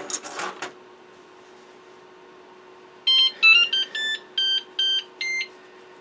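A Flashforge Adventurer 5M 3D printer plays its startup tune while booting: a quick run of about eight electronic beeping notes at changing pitches, starting about three seconds in and lasting about two and a half seconds. A brief noisy rustle comes at the very start.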